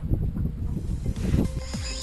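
Wind rumbling on the microphone over open water, with music coming in about halfway through.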